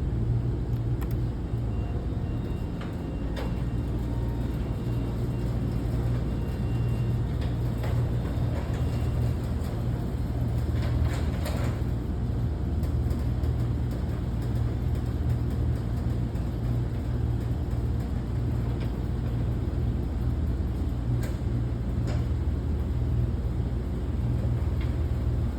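Steady low mechanical hum, unchanging throughout, with a few faint clicks.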